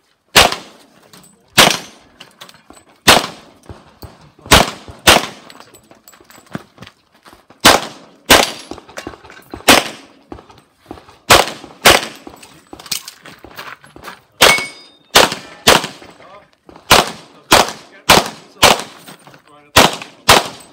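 Competition handgun fired in a long, irregular string of sharp shots, often in quick pairs about half a second apart with longer gaps between groups, during an IPSC stage run.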